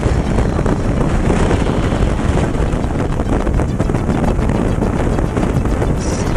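Loud, steady wind noise buffeting a camera microphone in skydiving freefall, as air rushes past the falling camera.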